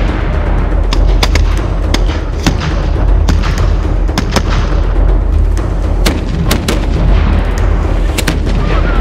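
A rapid, irregular string of sharp black-powder cracks and bangs, about two a second, over a steady low rumble.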